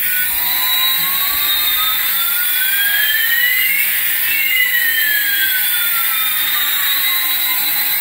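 Jet-engine sound effect: a steady hiss with two whistling tones sliding in opposite directions, one rising and one falling, crossing about halfway through.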